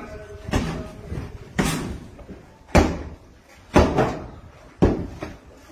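Heavy blows struck against a door five times, about one a second, each a loud bang that dies away quickly: police forcing their way into a house.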